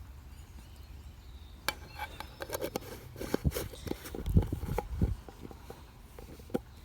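A run of light clinks and knocks as small objects are handled, busiest from about two to five seconds in.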